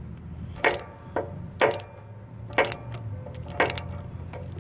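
Ratchet wrench clicking in about six separate sharp strokes, half a second to a second apart, each with a brief metallic ring, as a 24 mm socket snugs down the plastic bolt head of a new hydrostatic transmission oil filter just enough to seat its gasket.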